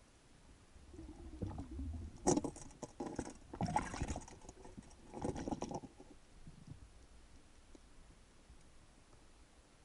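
Underwater clicks, knocks and scraping from a speared fish being handled on a steel spear shaft against rock, heard through an action-camera housing. A dull rumble starts about a second in, with the densest clatter from about two to six seconds in before it dies away.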